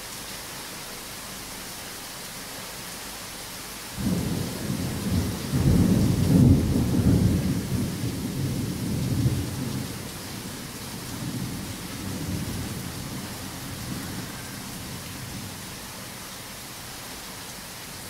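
Heavy rain hissing steadily. About four seconds in, a thunderclap breaks in suddenly and rumbles low, loudest about two seconds later, then rolls away over the next several seconds while the rain goes on.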